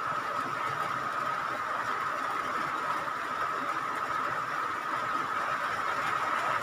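Steady background hiss with a constant thin whine in the middle of the range, unchanging throughout; no separate handling noises stand out.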